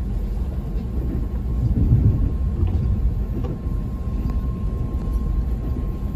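Acela Express running at speed, heard inside the passenger car: a steady low rumble of wheels and track, with a faint steady whine and a few light clicks.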